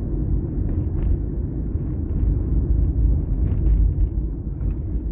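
Car driving along a town road, heard from inside the cabin: a steady low rumble of engine and tyres, with a few faint ticks.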